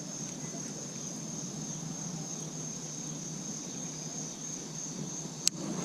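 Steady high-pitched chorus of insects over a low outdoor hiss, with one sharp click near the end.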